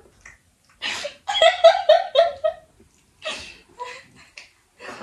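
A person laughing in a run of short bursts, with breathy gasps a little later.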